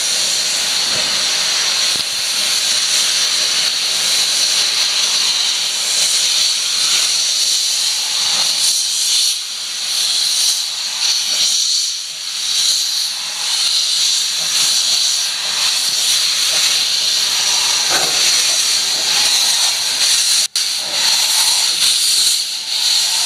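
Ww class steam locomotive hissing steam steadily, a high hiss that swells and eases, with a brief break about twenty seconds in.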